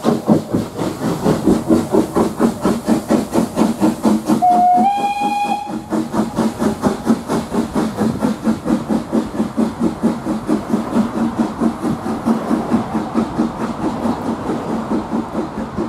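A steam locomotive working hard, its exhaust beats rapid and regular. About four and a half seconds in it sounds its steam whistle once, a note of about a second and a half that steps up in pitch partway through. The exhaust beats carry on after the whistle.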